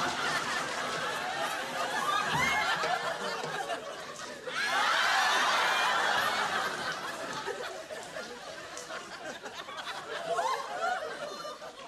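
Audience laughter, likely a laugh track, rising and falling in waves. It swells loudest about four and a half seconds in, breaks out again briefly near the end, and then fades.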